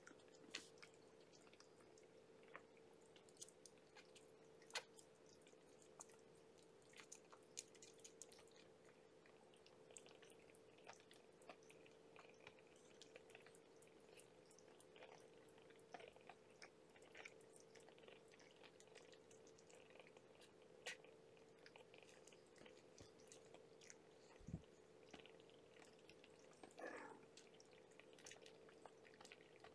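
Near silence over a steady faint hum, with scattered soft wet clicks of a mother cat licking her kittens and the kittens suckling; one short wavering squeak near the end.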